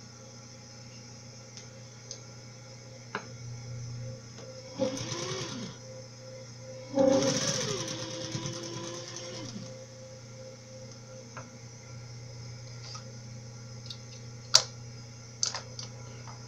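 Electric sewing machine stitching a seam in two runs, its motor speeding up and slowing down each time: a short run about five seconds in, then a longer one about seven seconds in. Sharp clicks follow near the end, the loudest about fourteen and a half seconds in.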